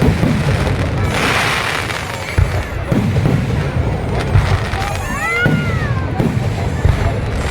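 Diwali firecrackers and fireworks going off over and over, with repeated low booms, a hissing burst about a second in and a brief whistle about five seconds in. Music plays in the background.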